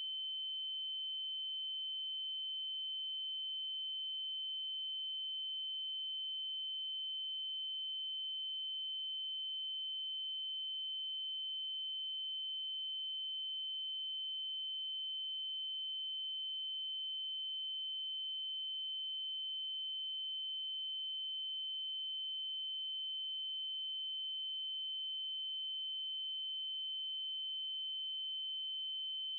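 A synthesized 3072 Hz triangle-wave tone, a single high pitch held steady and unchanging.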